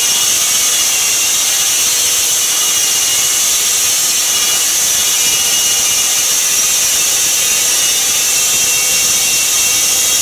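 Home-built band sawmill running and cutting through a log fed on a rolling carriage: a loud, even hiss with a steady hum of several tones beneath it.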